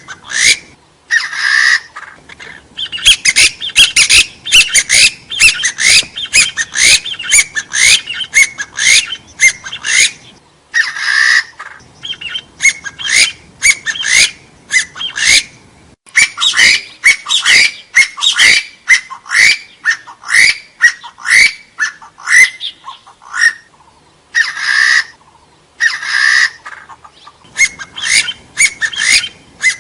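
Hill partridge (gà so, Arborophila) calling: loud, rapid series of short rising notes in long bouts, with a few brief harsher calls between the bouts.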